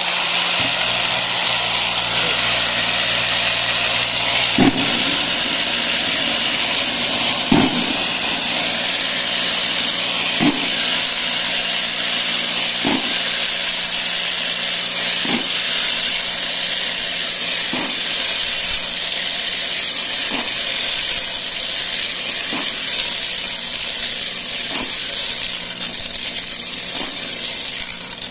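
Wood-polishing tumbler ('pipoqueira') running steadily with a load of small wooden balls and wax: an even rushing noise over a low hum, with a soft knock about every two and a half seconds.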